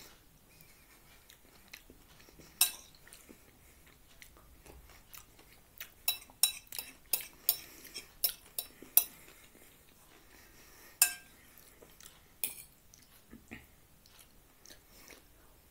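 Metal fork clinking and scraping against a plate while eating: a single clink, then a quick run of about eight clinks, then one more clink near the middle that rings briefly.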